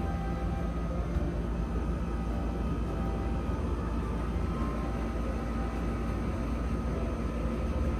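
Steady low background rumble with a faint hum, even throughout, with no distinct events.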